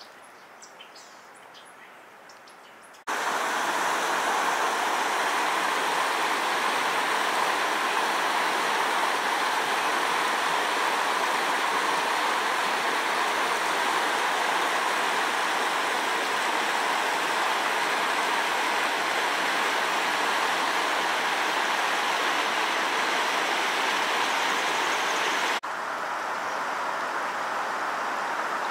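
Floodwater rushing over the rapids of a river in spate, a steady loud rush that starts abruptly about three seconds in, after a quieter opening with a few faint high chirps. Near the end it gives way to a softer, hissier rush of water in a small rocky creek.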